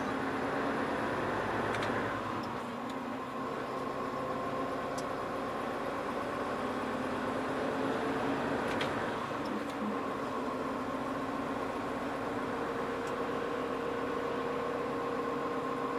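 Hino Profia heavy truck's diesel engine running, with road noise, heard inside the cab while driving; the engine note shifts in pitch a couple of times.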